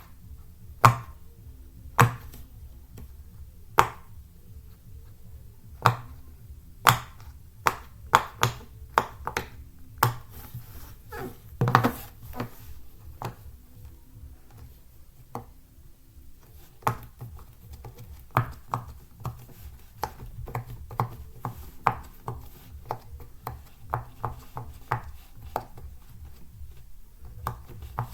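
Bubbles of a silicone pop-it fidget toy being pressed, giving short sharp pops. The pops come a second or two apart at first, then bunch up with a loud cluster midway, and come quicker and lighter near the end.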